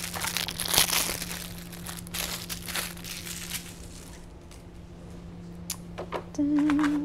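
Plastic wrapper crinkling and tearing as a small packet is worked open by hand, fading out after about three and a half seconds. A few light clicks follow, then a short low hum near the end.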